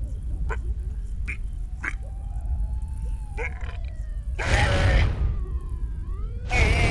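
Cartoon sound effects of a caveman reacting to burning-hot chilli: a thin whistling tone gliding slowly in pitch and scattered short clicks over a low rumble, then two loud raspy cries about two seconds apart.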